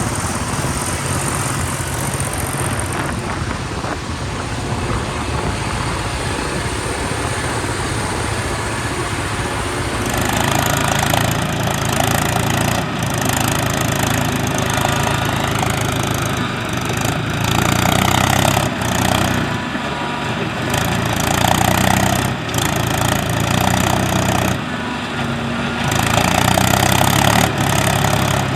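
A tractor's diesel engine runs steadily while powering a backhoe loader attachment that digs and loads mud. The engine sound swells louder several times as the backhoe works.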